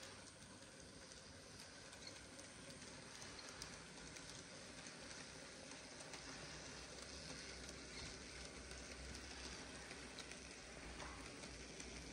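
Faint, steady running noise of a model C12 tank locomotive hauling a loaded freight train, with fine ticking from the wheels and mechanism on the track.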